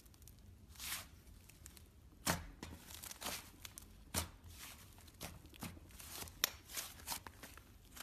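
Butter slime being handled by hand: irregular soft squishes with sharp tearing crackles and pops.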